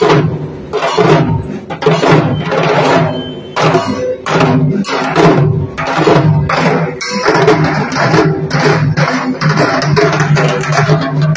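Several dhaks, the large Bengali barrel drums, beaten together in a steady repeating rhythm.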